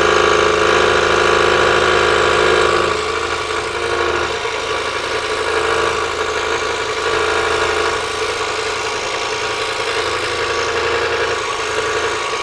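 Scroll saw running with a steady hum as its blade cuts out a picture mounted on a board. About three seconds in the hum eases slightly and carries on steadily.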